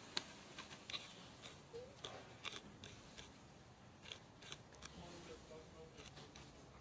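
A macaque chewing and biting food close to the microphone: a quiet run of sharp, irregular clicks and crunches.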